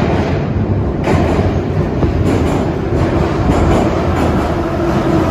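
Subway train passing close by in the tunnel: a loud, steady rumble, with the wheels clacking repeatedly over the rail joints from about two seconds in.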